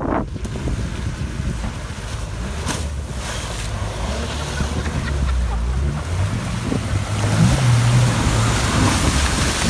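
An off-road vehicle's engine running low under a loud, steady rushing noise, the engine note growing stronger in the second half, with a couple of brief knocks about a quarter of the way in.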